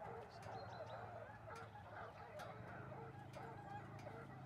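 A pack of bloodhounds in cry, heard faintly from a distance: many short, overlapping baying voices as the hounds run a clean-boot line.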